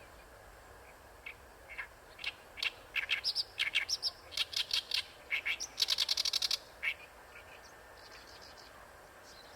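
Oriental reed warbler singing a harsh, chattering song phrase of short repeated notes. It starts about a second in, thickens into a fast grating run near six seconds, and stops around seven seconds. A few faint notes follow.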